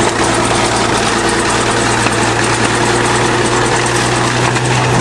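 Large bulldozer's diesel engine running steadily under load as the dozer pushes over a thorn tree.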